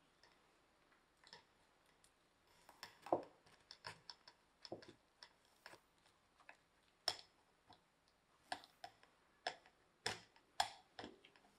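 Cooked sweet potato being pressed and scraped through a metal mesh sieve with a spatula: irregular light clicks and taps of the spatula on the mesh and the sieve against the glass bowl, a few each second.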